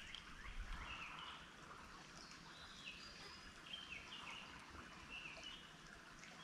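Faint outdoor ambience with a bird chirping over and over in short, falling notes.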